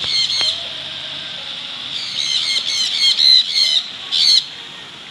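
Caged parrot-type birds, like lovebirds but larger, squawking: a few harsh calls at the start, a quick run of about seven in the middle, and one last call a second later. A faint steady high hum runs underneath.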